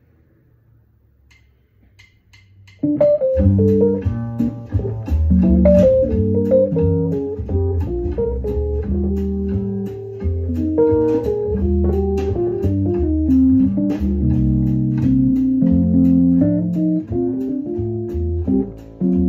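Rhodes electric piano played solo: sustained chords over low bass notes, entering suddenly about three seconds in after a faint low hum.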